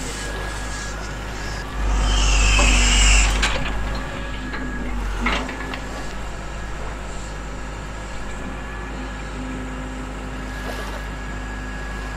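A radio-controlled scale-model Hitachi Zaxis 310 excavator runs with a steady motor hum while working its arm and tracks in sand. About two seconds in, it swells into a louder strained surge for a second and a half. A short sharp crack follows a couple of seconds later.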